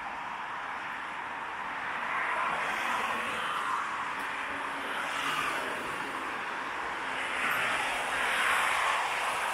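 Road traffic going by: a steady rush of tyre and engine noise that swells and eases as vehicles pass, louder about three seconds in, about five seconds in and near the end.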